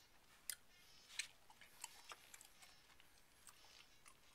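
Near silence: room tone with faint, irregular small clicks, the two loudest about half a second and a second in.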